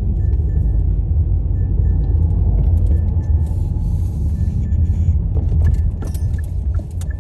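Car driving, a steady low road rumble, with a few sharp clicks in the last two seconds.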